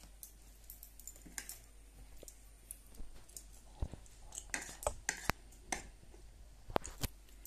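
Metal spoon clinking and scraping against a ceramic plate while scooping fried rice, in irregular sharp clicks that come thicker and louder in the second half.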